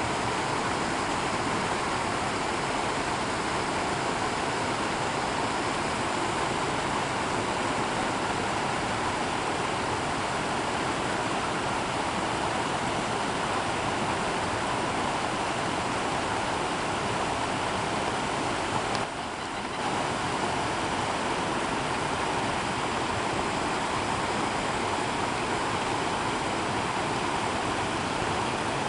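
Steady rushing of running water, even and unbroken, dipping briefly about two-thirds of the way through.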